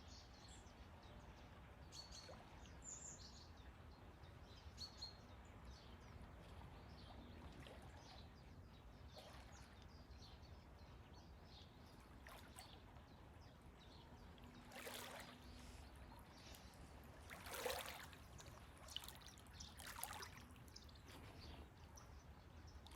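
Near silence: faint waterside ambience with soft trickling and three soft water splashes in the second half, and a few faint high bird chirps near the start.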